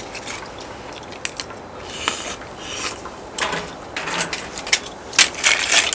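Scraping and clicking of steamed scallop shells being handled and pried at while eating, with a louder rasping stretch a little after five seconds in.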